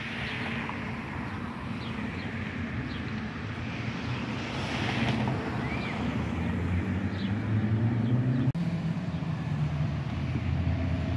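A bus engine approaching and growing louder, its note climbing and then dropping abruptly about eight and a half seconds in.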